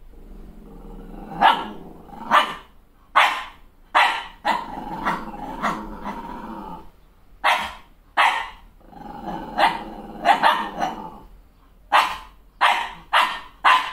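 Malshi (Maltese × Shih Tzu) puppy barking and growling at its own reflection in a mirror: sharp, high barks in quick runs of two to four, with low growling between them, starting about a second and a half in.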